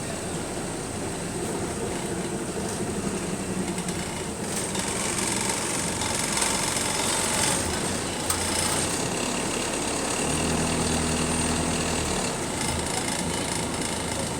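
Bus engine running, heard from on board. Steady mechanical noise that grows a little louder about four seconds in, with a low engine hum coming through for a couple of seconds near the ten-second mark.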